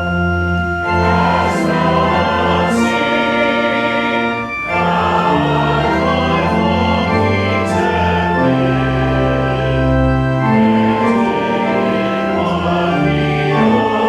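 Congregation singing a hymn to pipe-organ-style accompaniment, with long held chords over steady deep bass notes that change every second or two.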